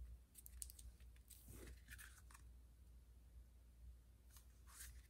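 Near silence with a few faint, short rustles and scrapes of cardstock being pressed flat and slid by hands on a cutting mat, over a low steady hum.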